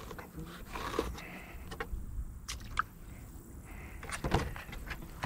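Fillet knife scraping and cutting catfish skin against a cardboard sheet, with scattered light taps, and a louder knock and rustle about four seconds in as the fish carcass is picked up. A steady low wind rumble on the microphone runs underneath.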